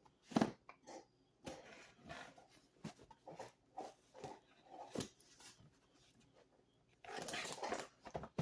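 Cardboard shipping box being handled and opened by hand: irregular taps, knocks and rustles of cardboard, then a longer scraping rustle near the end.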